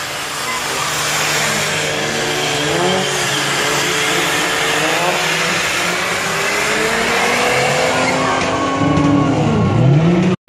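Car doing a burnout: the engine revs up and down at high revs while the spinning tires squeal and hiss against the pavement. Near the end a deep rev dips and climbs again before the sound cuts off abruptly.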